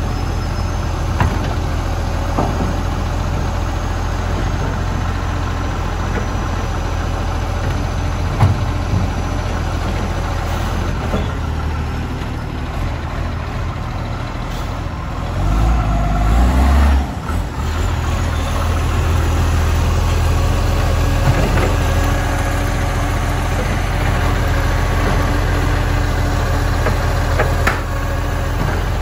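Dennis side-loading garbage truck's engine idling and pulling forward between bin lifts, with a few short knocks from the lifting arm and bins. The engine swells briefly a little over halfway through.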